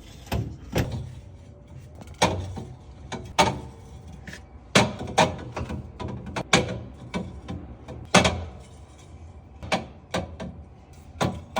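Containers and items being set down and shifted on refrigerator shelves: about a dozen irregular knocks and clunks, some with a short ring, and the fridge door opening and closing.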